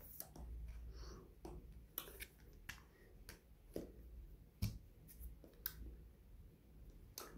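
Faint, irregular sharp clicks and ticks over a low room rumble, with the loudest click a little past halfway.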